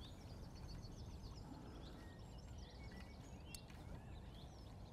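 Faint songbird chirps and short trills over a low, steady outdoor background noise, with a single faint click about three and a half seconds in.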